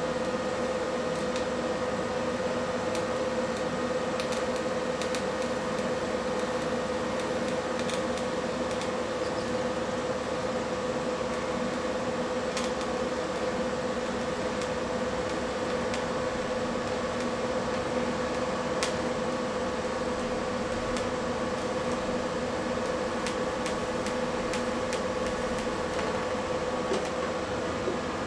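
TIG welding arc from an HTP Invertig 221 on steel: a steady buzzing hum over an even hiss, with a few faint crackles, cutting off near the end as the arc is broken.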